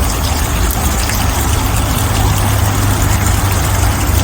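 Steady rushing of flowing river water, loud and even, with a strong low rumble underneath.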